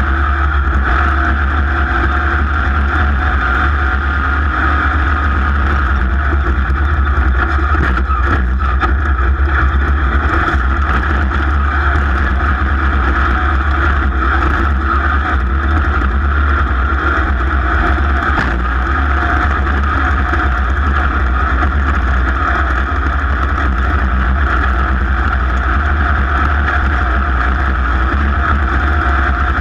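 Racing engine running hard at a steady high speed, with a heavy rumble of wind underneath it; there are no clear shifts or revs up and down.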